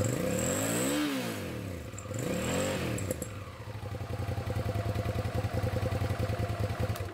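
2006 Hyosung GT650S's V-twin engine revved twice on the throttle, each rev rising and falling, then idling evenly. With its carburettors freshly cleaned, it is now firing on both cylinders.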